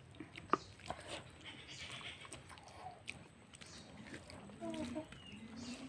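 Quiet eating sounds of a person eating rice and curry, with a few soft mouth clicks and smacks. About four and a half seconds in there is a short, wavering, whine-like call.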